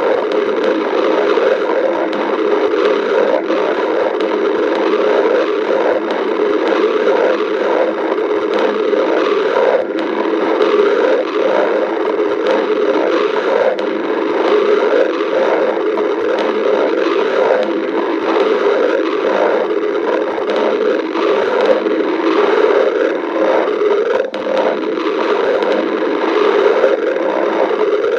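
A person's stomach growling: a loud, continuous rumble that flickers and churns without a break.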